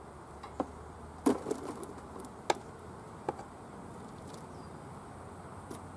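Four sharp wooden knocks and clicks in the first few seconds, the loudest about a second in, as a board and a metal hive tool strike the wooden beehive box, over a faint steady hum of bees.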